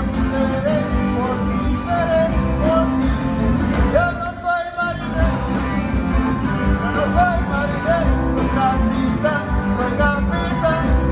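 Live rock band playing a song, with guitar; the sound thins briefly about four and a half seconds in.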